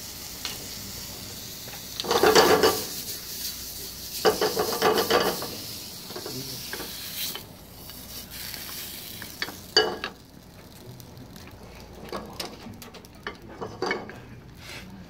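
Diced chicken, onion and mushrooms sizzling in a frying pan, with two spells of loud stirring and scraping in the pan. About halfway through the sizzle fades as the pieces are scraped into the saucepan of white sauce. A sharp knock follows, then light scrapes and clicks of a wooden spatula stirring in the saucepan.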